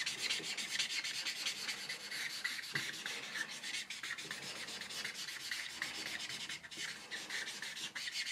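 Black marker pen scribbling back and forth on a paper pad, filling in a stripe: a steady scratchy rubbing of many quick strokes.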